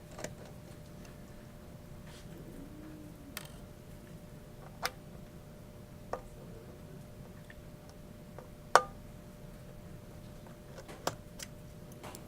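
Scattered light clicks and taps of a small Torx screwdriver and tiny screws being worked and set down, irregularly spaced, with one sharper click about two-thirds of the way through.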